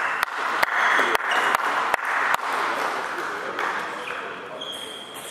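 Spectators applauding and cheering a won point in a table tennis hall, with a run of sharp, evenly spaced clicks over the first two and a half seconds; the applause dies away over the last couple of seconds.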